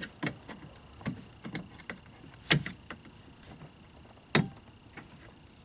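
Scattered clicks and knocks of hands working on a car's interior door panel and its parts, with two louder knocks about two and a half and four and a half seconds in.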